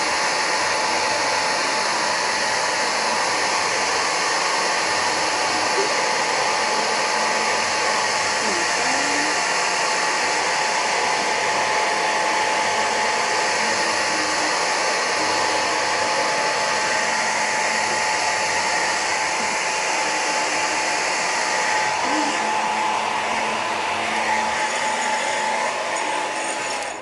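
Hair dryer running steadily on a dog's fur, a loud rushing blow with a thin steady tone in it; it switches off right at the end.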